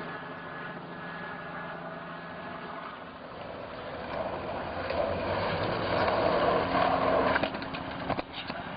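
Street traffic noise with vehicle engines running. It starts as a low steady hum and swells louder about four seconds in, with a few short clacks near the end.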